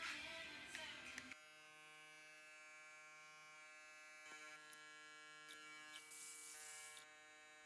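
Cordless hair trimmer with a newly replaced battery and motor, running with a steady electric buzz from about a second in.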